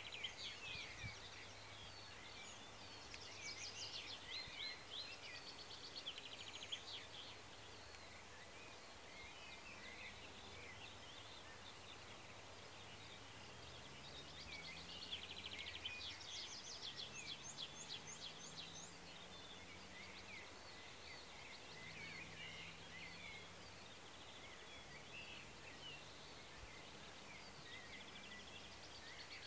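Faint birdsong: songbirds singing in short phrases of chirps and quick trills, over a steady low outdoor hiss.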